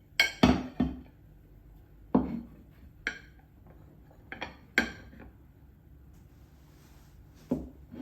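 Kitchenware being handled: dishes and utensils clinking and knocking in a series of separate sharp hits, a few of them ringing briefly.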